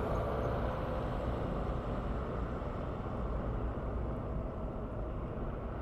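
Steady low outdoor rumble with no distinct events, the kind of vehicle-like background noise heard near a busy construction site.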